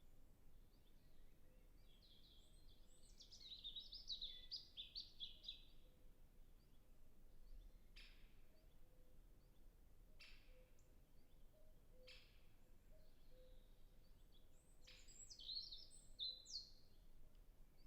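European robin singing, faint: a phrase of rapid, high warbling notes about two seconds in and another near the end. Four short, sharp clicks fall in the gap between the phrases.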